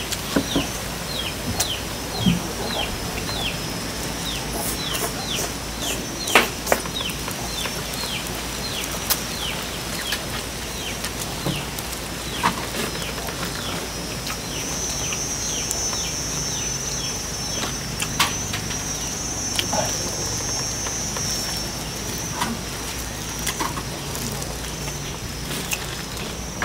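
A bird chirping in a steady series of short falling notes, about two a second, thinning out about halfway through. A steady high hiss runs underneath, with scattered sharp clicks.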